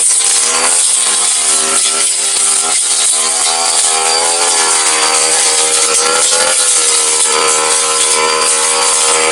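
Petrol brush cutter running at high revs with a spinning metal blade cutting grass, its engine pitch dipping and recovering a few times as the blade meets the grass.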